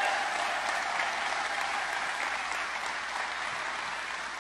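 Audience applauding in a hall, a dense, even clapping that slowly tapers off. A single steady held note sounds over it for the first couple of seconds.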